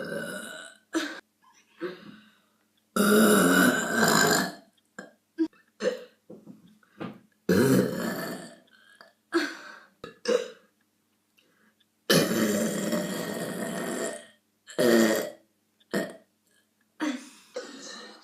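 A person burping over and over: several long, loud belches, the longest about two seconds, with short burps in between and brief silences.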